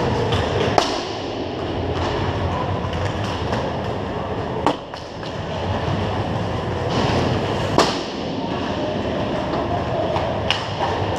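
Hockey game play echoing in an indoor rink: a steady scraping rumble with four sharp cracks of sticks striking the puck.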